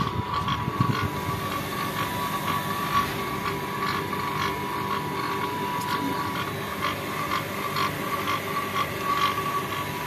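Pump machinery running steadily with a constant high whine and a lower hum, with many small irregular clicks, as descaling solution circulates through a heat pump's water circuit and pours out of a pipe into a plastic bucket.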